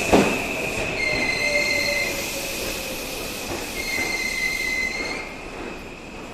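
Seibu Line 'Smile Train' electric train running past and moving away, with a steady high wheel squeal, a few clacks over rail joints at the start and a motor hum that slowly drops in pitch. Twice, about a second in and again about four seconds in, a clean high tone sounds for roughly a second. The sound fades near the end.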